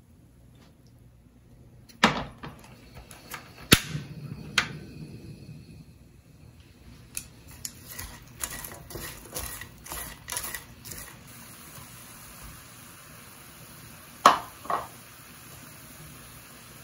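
A utensil stirring dried shrimp and pecans in a stainless steel pan: sharp knocks against the pan, then a run of quicker clicks and scrapes, and two loud knocks in quick succession near the end.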